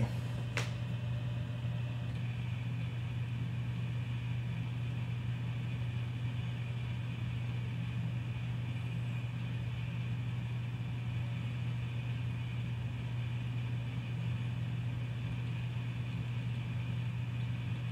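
A steady low hum with a faint high whine over it, and a single click about half a second in.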